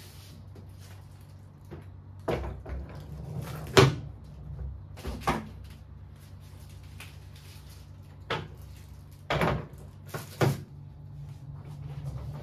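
Wooden furniture being handled: a string of about seven knocks and clunks, like cabinet doors or drawers shutting and panels being set down, the loudest near four seconds in, over a low steady hum.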